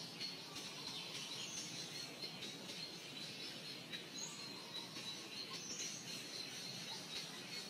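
Faint outdoor ambience: a steady, high-pitched insect drone, with a few brief high chirps around the middle.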